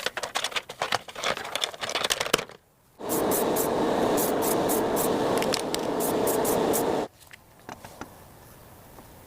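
Restoration work sounds: a quick run of scrapes and clicks, then, after a short pause, a steady spray-like hiss lasting about four seconds that cuts off suddenly, followed by a few faint ticks.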